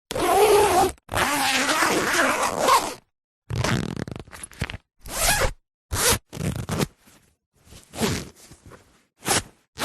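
Zippers being zipped and unzipped in a series of separate pulls: two long pulls in the first three seconds, then several shorter, quicker pulls, with silent gaps between.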